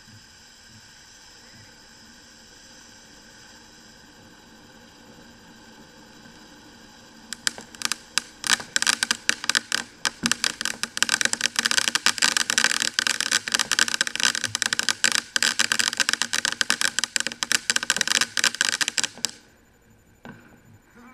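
A ground fountain firework spraying with a steady hiss, then about seven seconds in breaking into dense, rapid, loud crackling that stops suddenly near the end.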